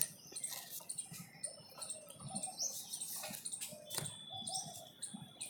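Faint background sound during a pause in speech: scattered small clicks and rustles, with a faint high steady tone in the second half.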